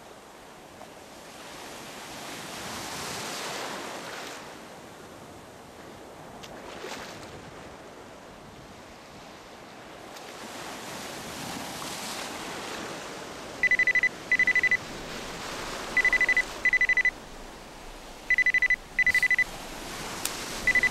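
Sea surf and wind noise on the microphone, swelling and fading. About two-thirds of the way through a mobile phone starts ringing: short electronic double rings at one high steady pitch, three pairs and the start of a fourth, louder than the surf.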